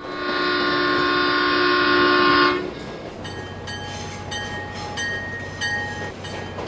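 A train horn sounds one loud, steady chord for about two and a half seconds, then cuts off. A quieter, evenly repeating ringing pattern follows over a low steady hum.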